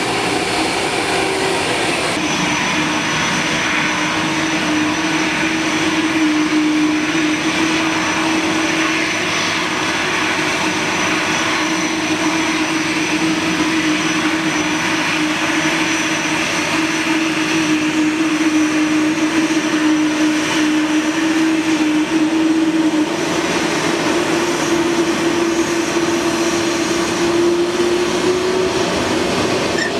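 Jet engines of a Lufthansa Cargo MD-11F trijet running at low taxi power: a steady whine and rush with a humming tone that edges up in pitch near the end.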